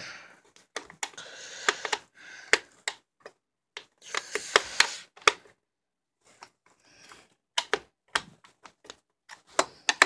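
Irregular sharp clicks and taps, with two short stretches of scraping, as a Phillips screwdriver and the plastic parts of a Shark vacuum power head are handled.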